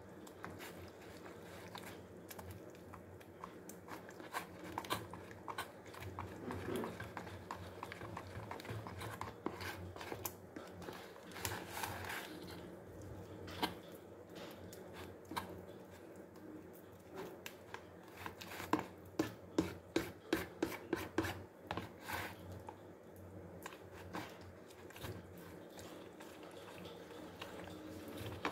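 Metal spoon stirring and beating a runny flour-and-egg batter in a plastic container: wet scraping with clicks and taps of the spoon against the sides. About two-thirds of the way through comes a quick run of taps, about four a second, for a few seconds.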